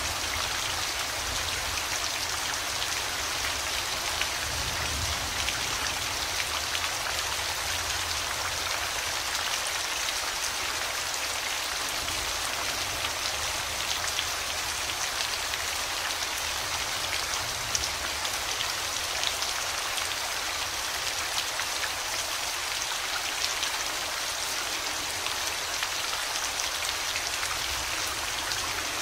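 Steady rain falling, with many individual drop hits ticking through an even hiss.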